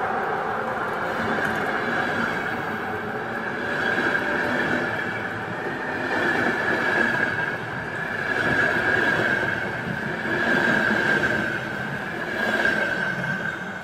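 CFR passenger carriages rolling past at close range, their wheels running on the rails with a steady high-pitched squeal. The noise swells and fades about every two seconds as the carriages go by.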